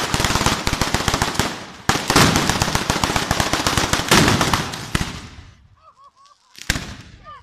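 Italian street firework battery (batteria), a chain of firecrackers going off in a rapid, dense crackle of bangs, with a louder surge about two seconds in. It thins out after about five seconds, and a single sharp bang follows near the end.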